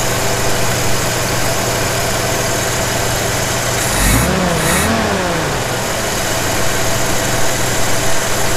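1981 Jeep CJ7 engine idling on a Weber 32/36 carburetor while its idle mixture screw is being adjusted for the highest vacuum reading, at about 20. The idle is steady, with a brief rise and fall in pitch about four seconds in.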